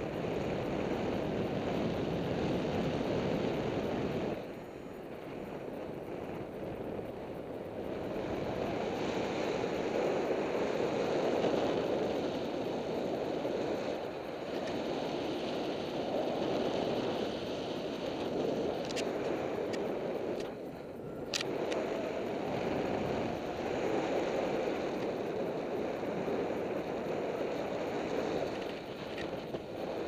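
Wind rushing over the microphone of a paraglider in flight: a steady rush that swells and eases, with a few faint clicks about two-thirds of the way through.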